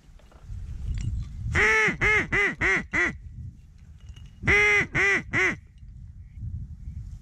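Loud mallard-type duck quacks: a run of five quick, slightly falling quacks, then three more about a second and a half later.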